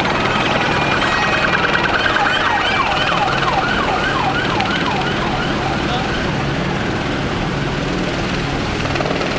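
An emergency-vehicle siren yelping in fast rising-and-falling sweeps, about three a second, from about a second and a half to six seconds in. Under it runs the steady drone of a Eurocopter AS350 helicopter hovering overhead, mixed with street traffic.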